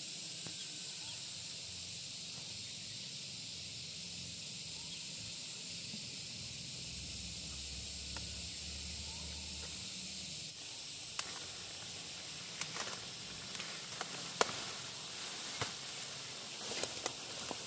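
A steady, high-pitched outdoor hiss, with scattered sharp clicks and knocks in the last third.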